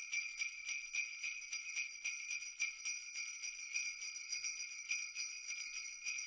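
Jingle bells shaken steadily in a quick, even rhythm, a bright continuous jingling.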